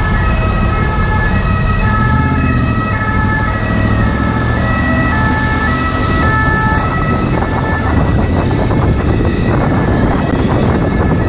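French SMUR ambulance's two-tone siren, alternating between two pitches, growing fainter about two-thirds of the way through. Underneath is a motorcycle engine's steady low rumble and wind rushing past the helmet microphone, the wind rising as the siren fades.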